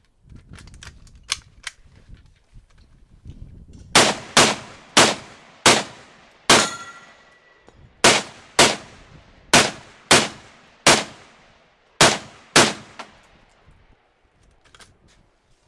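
SKS rifle in a bullpup stock kit firing twelve semi-automatic shots at an uneven pace, each crack trailing off in echo. One shot about a third of the way through is followed by a brief metallic ring. A few faint clicks come before the shooting starts.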